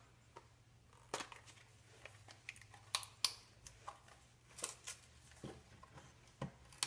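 Small cardboard product box (the Arduino Uno's) being handled and its end flap worked open by hand: a scattering of light clicks, taps and scrapes of card, irregularly spaced.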